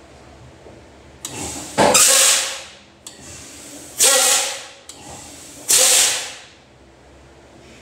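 Air brakes on a 1983 Mack R686ST steer axle being applied and released three times to test a newly fitted front brake chamber: three sharp hisses of air, each starting suddenly and fading out in under a second.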